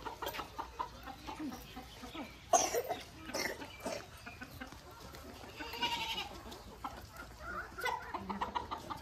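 Goats bleating and chickens clucking in a farmyard, with short scattered calls and one sharp, loud sound about two and a half seconds in.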